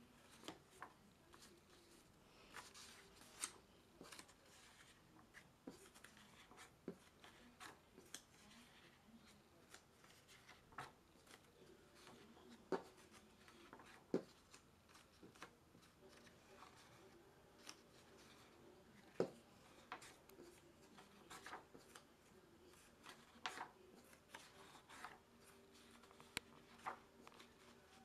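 Faint paper rustling and scattered soft clicks and taps as sketchbook pages are handled and turned, over a low steady hum.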